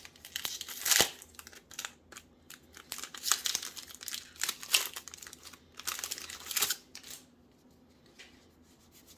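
Foil wrapper of a Magic: The Gathering draft booster pack crinkling and tearing as it is ripped open, in a string of irregular sharp crackles that thin out after about seven seconds.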